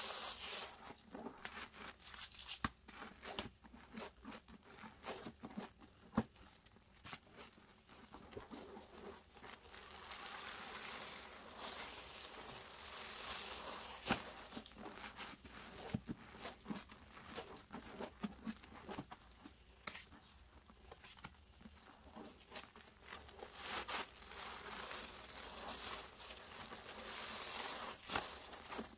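Rubber-gloved hands squeezing and kneading a sponge in thick, foamy Comet cleanser paste: wet squelching and fizzing foam, broken by many small sharp pops and crackles.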